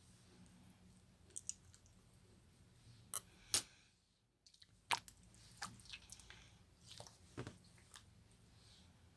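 Slime being squished and worked by hand, giving scattered sticky clicks and pops.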